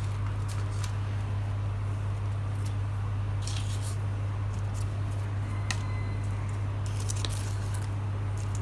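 Steady low electrical hum, with faint scattered rustles and light ticks from the sand-painting card and colored sand being handled; short rustling stretches come about three and a half seconds in and again around seven seconds.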